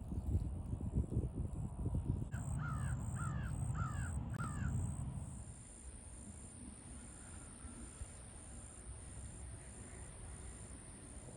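A bird calling four times in quick succession, harsh caw-like calls, over a low rumble that fades out about halfway through.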